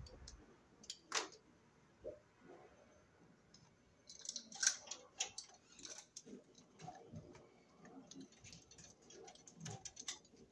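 Faint, scattered clicks and scrapes of a small blade working on a heavy insulated conductor, stripping its black insulation, with a busier run of scraping about four to six seconds in.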